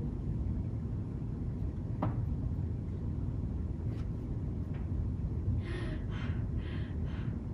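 Low steady room rumble, with a single knock about two seconds in and a few soft rustles near the end as the hand puppets are moved into view on the stage.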